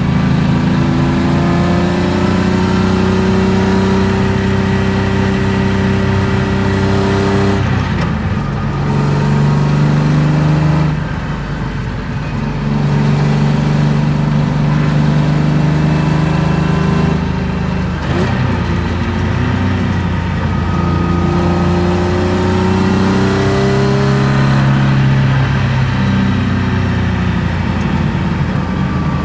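BMW M50B25 2.5-litre inline-six with aftermarket headers and exhaust, pulling under load with its pitch climbing slowly, then breaking off and starting again about four times, heard from inside the cabin.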